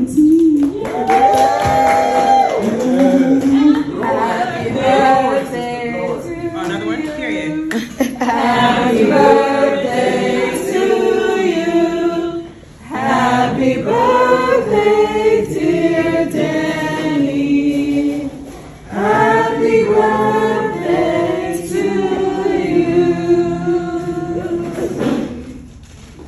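Several voices singing together with little or no instrumental backing, in long phrases broken by short pauses about 12 and 18 seconds in.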